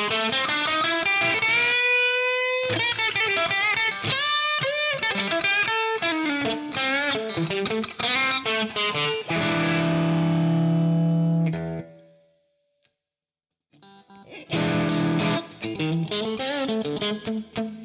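Jackson Performer PS-2 electric guitar played through amp-simulator software with a lightly overdriven 'dirty clean' tone. It plays quick single-note runs with a bend and some vibrato, then a held chord that rings and fades out. After a short pause the runs start again.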